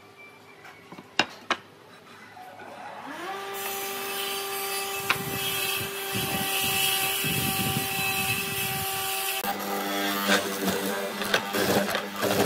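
Two light knocks, then an electric power tool's motor spins up with a rising whine and runs steadily. About nine and a half seconds in, a benchtop hollow-chisel mortiser bores into a wooden leg with a rough, rapid chatter.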